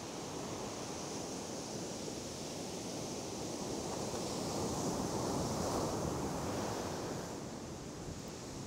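Sea surf, waves breaking and washing up a sandy beach: a steady rushing noise that swells about four seconds in and eases off near the end.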